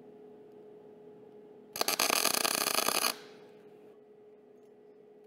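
Gas metal arc (MIG) welder striking a short tack weld with .035 wire: the arc crackles loudly for about a second and a half, starting about two seconds in, then cuts off abruptly.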